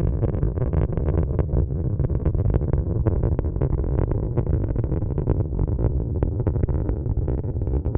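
Atlas V rocket with its RD-180 main engine and five solid rocket boosters firing in flight: a deep, continuous rumble shot through with dense crackling.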